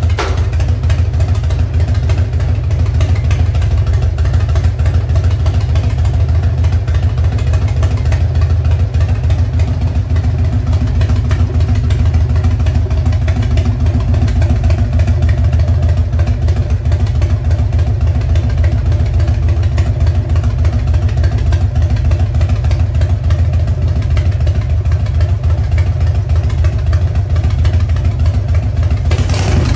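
1994 Harley-Davidson Heritage Nostalgia's carbureted Evolution 1340 cc V-twin running at a steady idle through Samson exhaust pipes.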